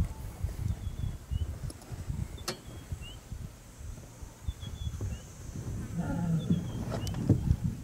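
Lions feeding at a carcass, with low crackling and tearing sounds and a short low growl about six seconds in.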